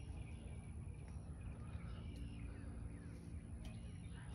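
Quiet outdoor lakeside ambience: a low steady rumble with faint bird chirps now and then.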